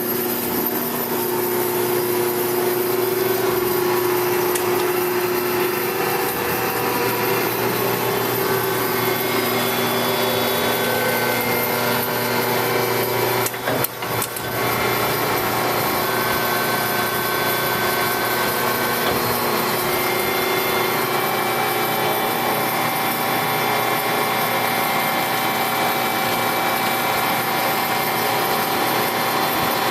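HEM double-column automatic horizontal bandsaw running, its 10-horsepower drive turning the blade through a cut, a steady sawing sound with a constant machine hum. It drops briefly about halfway through, then carries on as before.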